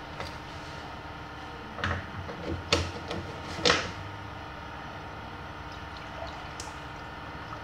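Three sharp plastic clicks and knocks, about a second apart, as the spray gun's gravity-feed paint cup is opened and handled, over a steady machine hum.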